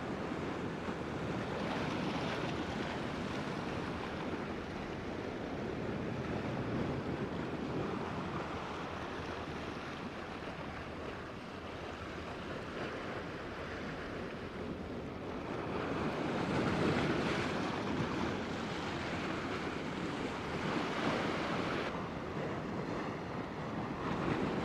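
Sea surf washing against a rocky shore: a steady wash that swells and ebbs, loudest about two-thirds of the way through.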